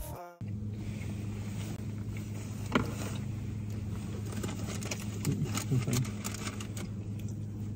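Music cuts off at the start, then a steady low hum of a car idling, heard from inside the cabin, with one sharp click about three seconds in.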